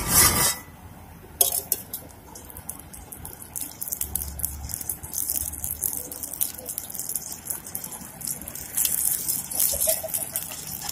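Hot oil crackling and spitting in a frying pan over an open flame: a steady hiss scattered with many small pops, growing busier after about five seconds. A loud burst opens it and a sharp click follows a second or so later.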